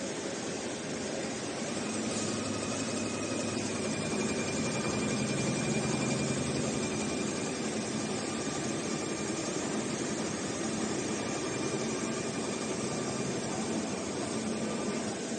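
Roll-to-roll heating wire sewing machine running: a steady mechanical whir with a faint high whine, growing slightly louder a couple of seconds in.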